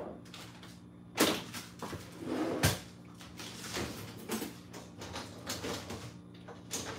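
Kitchen cupboard and drawer sounds: scattered knocks and a clatter of utensils being handled, the loudest about a second in and just before the three-second mark, over a steady low hum.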